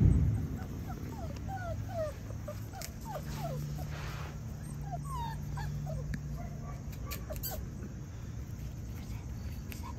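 Six-week-old Australian Labradoodle puppies whimpering and yipping in many short, high squeaks that fall in pitch. A low steady hum runs underneath for a few seconds in the middle.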